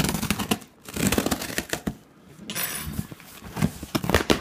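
Butter knife sawing and scraping through packing tape on a cardboard box: rapid scratchy clicks and scraping in several runs, with a brief tearing rasp near the middle.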